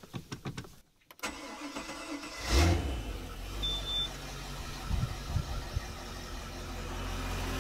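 Volvo Penta 5.7 V8 inboard engine starting from cold. After a few clicks, it fires about two and a half seconds in and settles into a steady low idle as it warms the oil.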